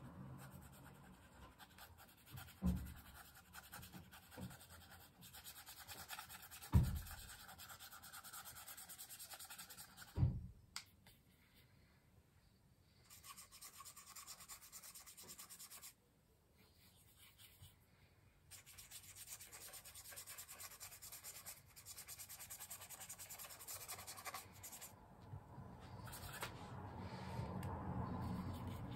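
A fine paintbrush stroking across a paper journal page, faint scratchy rubbing that comes and goes. Three soft low knocks come in the first ten seconds.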